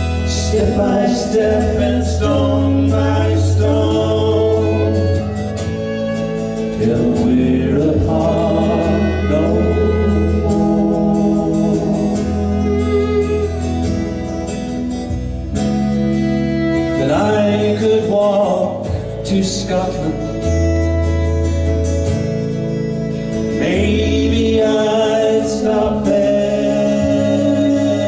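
A man singing a folk song into a microphone, with live instrumental backing under him: held low notes that change every couple of seconds.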